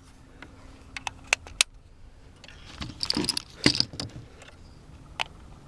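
Metallic clicking and rattling of rifle cartridges being loaded into a magazine. There are a few sharp clicks, then a longer rattle about three seconds in and another click near the end.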